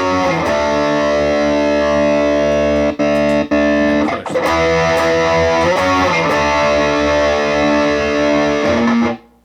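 Electric guitar played through a Positive Grid Reactor 50 1x12 combo on its Extreme high-gain amp model with the 'smooth' voicing: heavily distorted, sustained chords, changing several times and cut off sharply near the end.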